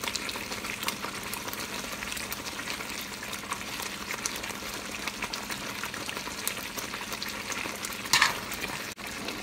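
Meat stew sizzling and crackling steadily in a hot aluminium pot, while it is stirred with a wooden spoon. A brief louder scrape comes about eight seconds in.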